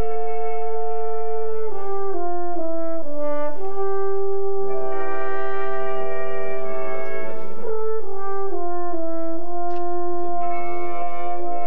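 Brass quintet of trumpets, French horn, trombone and tuba playing a slow passage of long held notes in several parts, with the upper line stepping down in short phrases.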